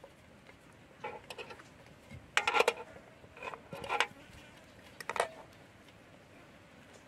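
A metal fork tapping and pressing on a plastic cutting board as it crimps the edge of a filled dough pastry. The clicks and clatters come in four short clusters, the loudest about two and a half seconds in.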